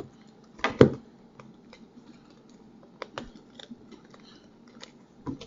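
Scattered sharp clicks and taps of hands working open a sealed box of trading cards, the strongest just under a second in and a few more around three seconds in.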